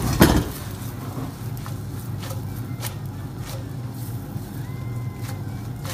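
Kitchen utensils handling pans and plates: a louder knock at the very start, then a few light clinks spread out, over a low steady hum.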